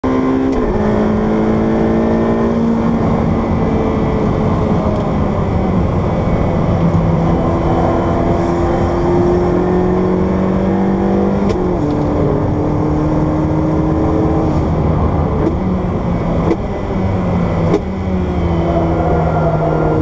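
Ferrari 488 Pista's twin-turbo V8 heard from inside the cabin, running hard on a track lap. Its pitch rises and falls with speed and steps down abruptly several times, each step with a short crack.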